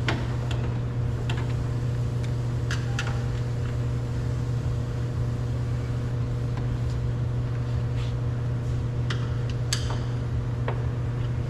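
Steady low mechanical hum, with scattered light clicks and ticks of a screwdriver working a screw on a car door handle.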